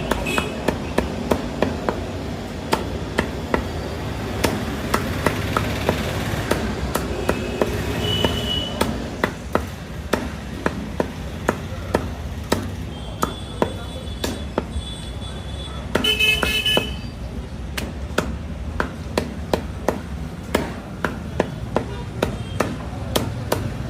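Cleaver chopping chicken with rapid repeated knocks, about two to three a second. Vehicle horns honk in the background a few times, longest about two-thirds of the way in.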